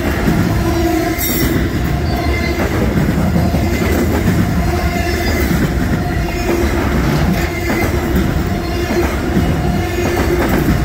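Intermodal freight cars carrying truck trailers rolling past at speed: a loud, steady rumble and clatter of steel wheels on the rails, with a faint squeal that comes and goes.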